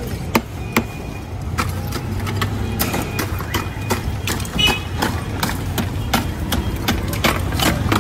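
Irregular sharp clinks and knocks of ice being handled for a street-stall milkshake, over a steady low rumble of street traffic.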